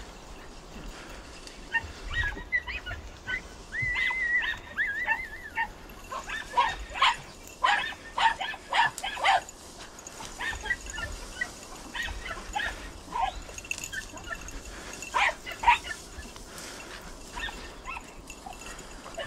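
Podenco hounds yelping and barking in bursts, with a high wavering whine about four seconds in and quick runs of yelps about halfway through and again later: hounds giving tongue while hunting rabbits.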